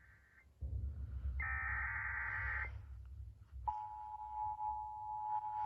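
Emergency Alert System tones. The tail of a buzzy SAME digital header burst, then a second burst of about a second, then from about three and a half seconds in the steady, harsh two-tone attention signal that announces the tornado warning. A low rumble runs under the second data burst.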